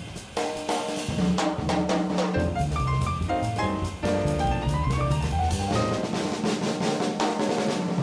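Jazz trio of double bass, piano and drum kit playing an instrumental swing passage, with the drums to the fore: many sharp hits and fills over piano chords and a low bass line.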